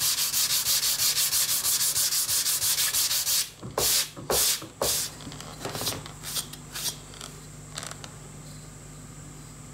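A sanding block rubbed back and forth over the fingers of a wooden box joint in quick, even strokes, which stop about three and a half seconds in. A few slower separate strokes follow, then only light handling sounds.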